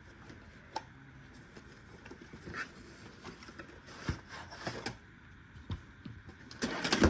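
Product packaging being opened and handled by hand: scattered scrapes, taps and light rustling, with a louder burst of rustling near the end.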